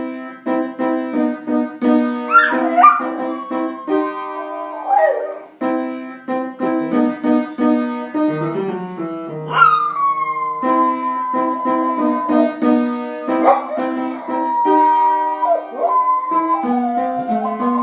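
A dog howling along to piano playing: several howls that slide up and down over the chords, the longest about ten seconds in, sliding down and then held.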